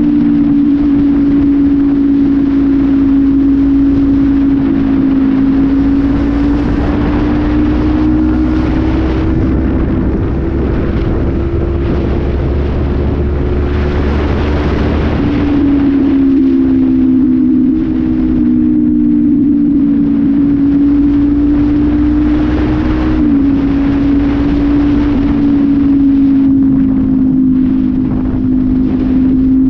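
Honda CB500F parallel-twin engine running through an aftermarket Pure Sound exhaust at steady road speed, with wind rushing past. Its pitch creeps up for several seconds, drops suddenly about halfway through, then holds nearly steady with a brief dip later on.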